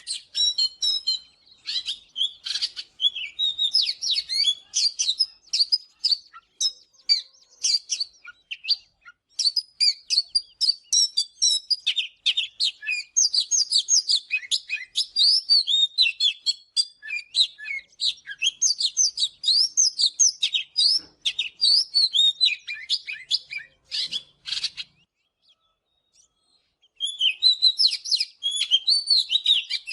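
Oriental magpie-robin singing: a fast, varied run of clear whistled notes and chirps that breaks off for about two seconds near the end, then starts again.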